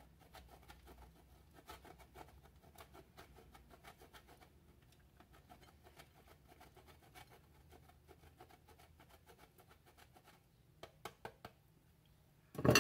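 Hard cotija cheese grated on a metal box grater: a rapid run of faint scraping strokes that thins out after about ten seconds. A few light knocks follow, then a louder knock just before the end.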